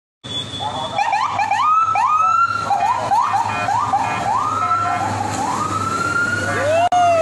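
Police siren sounding in a run of quick rising whoops, then slower, longer rising wails, with a second, lower siren tone rising and falling near the end. A steady low hum runs underneath.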